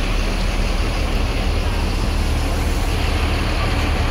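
Large diesel bus engine running steadily nearby, a deep even rumble with road-and-terminal noise over it.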